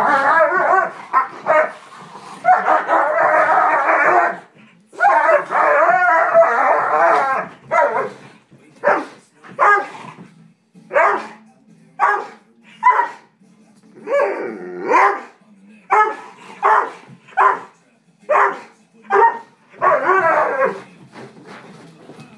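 Two Dobermans play-fighting: long runs of snarling growls through the first seven seconds or so, then short barks at about one a second.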